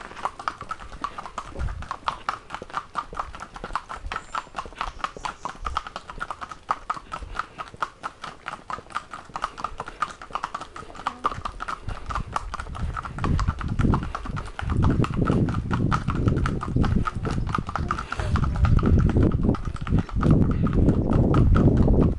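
Two harnessed ponies walking on a tarmac lane, their hooves clip-clopping in a steady, even rhythm. From about halfway through, a loud low rumble joins in under the hoofbeats.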